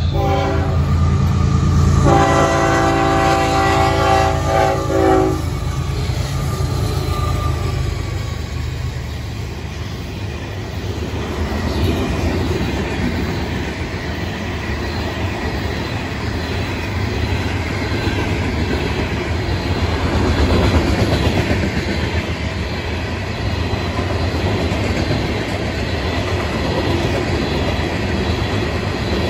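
A Florida East Coast freight train passes a grade crossing. Its locomotive horn ends one blast right at the start and sounds a long blast about two seconds in, lasting a few seconds, over the rumble of the diesel locomotives. After that come the steady roll and clatter of the freight cars' wheels on the rails as the cars go by.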